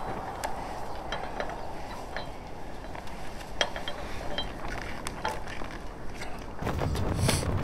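Scattered light clicks and clinks as a kite line and its hardware are handled, over a steady hiss of wind. A louder, deeper rustling noise comes in near the end.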